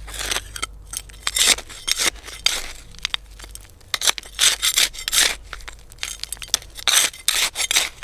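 Hand trowel digging into soil: a run of short, gritty scrapes, about two a second, coming irregularly.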